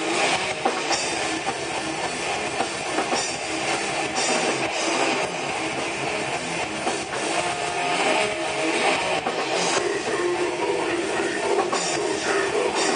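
Live metal band playing: distorted electric guitars and a drum kit, in a dense, loud wash.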